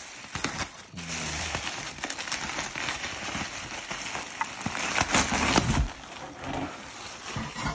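Plastic bubble wrap crinkling and rustling as it is pulled off and handled, with many small crackles; the handling is loudest a little past halfway.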